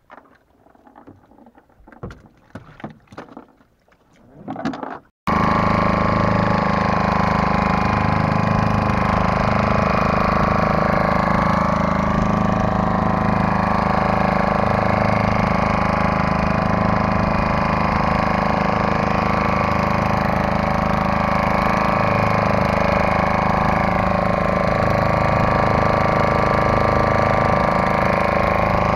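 A few seconds of faint scattered knocks, then, starting abruptly about five seconds in, a boat's outboard motor running steadily with the boat under way.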